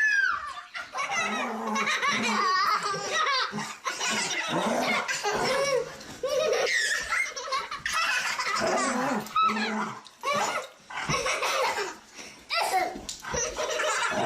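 People laughing heartily and repeatedly, with a child's high-pitched laughter among them.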